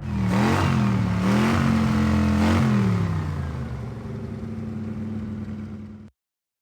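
Mazda RX7 FD's two-rotor 1.3 L rotary engine being revved: a quick blip about half a second in, revs held up for about a second and a half, then dropping back to a steady idle. The sound cuts off abruptly near the end.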